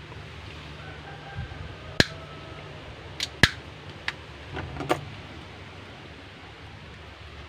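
Hand tools clicking and clinking against metal as pliers are handled and set down, a handful of sharp clicks between about two and five seconds in, over a low steady hum.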